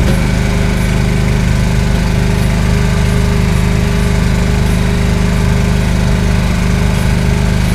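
Boat engine running steadily at a constant speed as the boat travels across open water.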